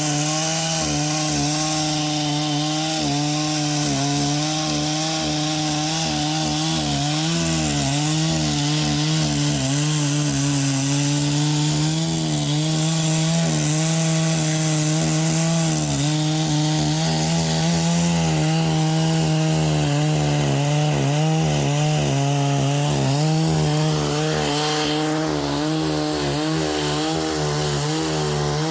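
Chainsaw running at full throttle under load, ripping lengthwise down a tree trunk to cut a plank, its engine pitch wavering slightly as the bar works through the wood.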